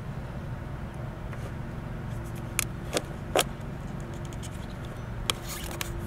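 Hard plastic clicks and crinkles as a plastic cup and its wrapper are handled against a lawn mower's fuel tank while old gasoline is drained: three clicks near the middle and one near the end, over a steady low hum.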